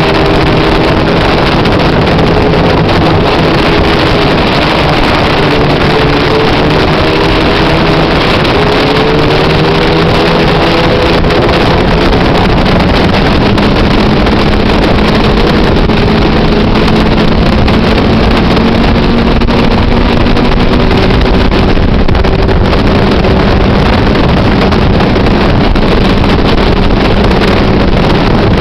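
Motorcycle engine running at road speed under heavy wind rush on the microphone; the engine note shifts up and down a little in the first half, then holds steady.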